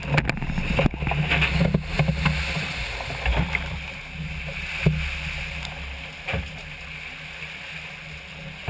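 Water rushing and spraying through a yacht's cabin as the boat rolls in a capsize, with loose gear clattering and knocking against the fittings. The clatter is busiest over the first three seconds, then come two single knocks and the rush of water dies down as the cabin settles.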